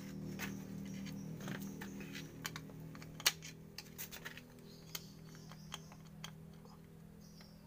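Irregular metal clicks and taps of a screwdriver and steel brake shoe against a rear drum-brake backing plate as the shoe is worked into place, with one sharp clink about three seconds in. A steady low hum runs underneath.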